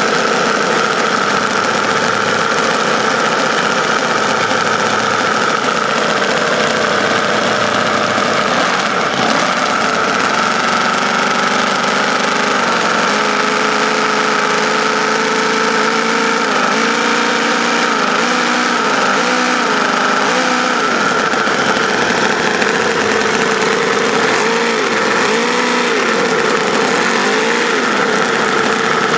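Small homemade V4 engine running steadily. From about ten seconds in, its speed rises and falls several times as it is adjusted by hand.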